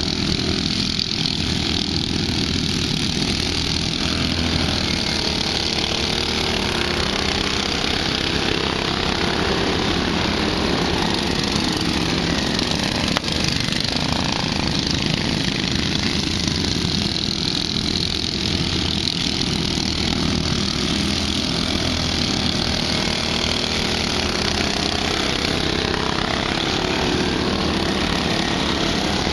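Racing lawn mower engines running steadily.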